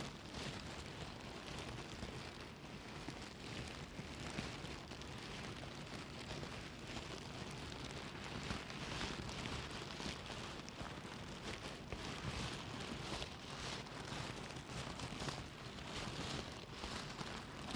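Plastic bag being rustled and crumpled without pause: a dense crackling with many small sharp crinkles.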